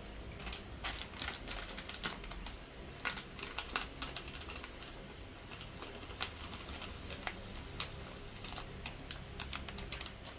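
Small kitchen handling sounds: irregular light clicks and taps of a spoon and containers while smoothie ingredients go into a blender.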